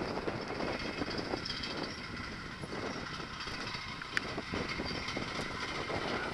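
Wind rushing over the microphone, mixed with the rumble of a bicycle's tyres rolling on a concrete bridge path, and a few sharp clicks from the bike, the clearest about four seconds in.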